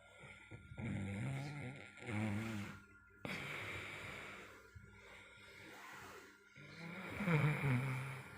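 A man snoring in deep sleep: several rough snores with breathy draws of air between them, the loudest near the end.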